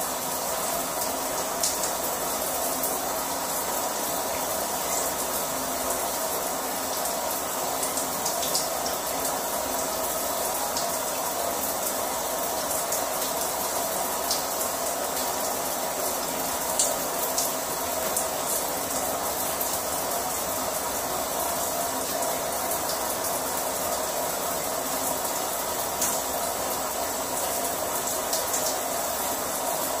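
Household shower running: water streams steadily from a wall-mounted multi-jet shower head and splashes below it. There is an even rush with a few sharp splashes now and then.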